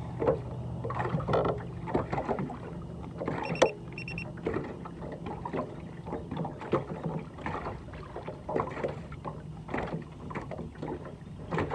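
Small waves lapping and slapping against a fishing boat's hull in irregular splashes, over a low steady hum. Two short high electronic beeps sound about three and a half seconds in.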